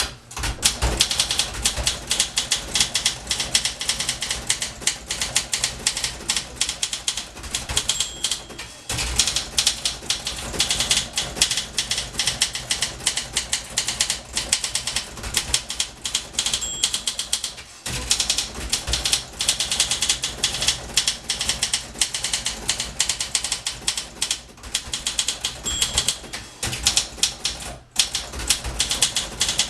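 Continuous rapid typing on a 1961 Olympia SM 4 portable typewriter: fast key and typebar strikes clattering against the platen. Three times a short bell-like ring sounds, and each is followed about a second later by a brief break in the typing, as the margin bell warns of the line's end.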